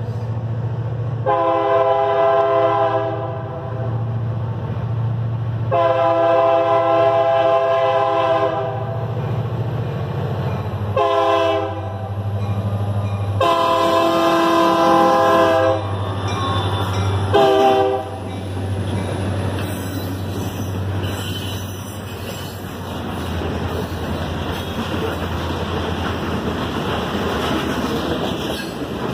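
Freight train's diesel locomotive sounding its air horn for the grade crossing: two long blasts, a short one, a long one and a final short toot, over the low rumble of the engine. Then the hopper cars roll through the crossing with a steady rumble of wheels on the rails.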